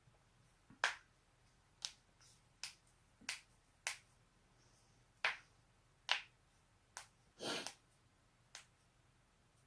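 Human joints cracking: about ten sharp pops at uneven intervals, with one longer crackling pop about three-quarters of the way through.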